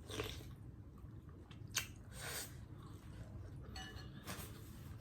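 Faint eating sounds: chewing and small soft noises of spoon and bowl, with one sharp click a little under two seconds in.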